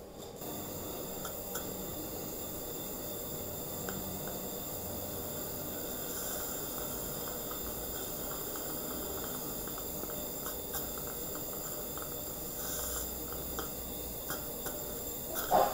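Dental saliva ejector suction running with a steady hiss, with scattered faint clicks and slurps and one short, louder slurp near the end.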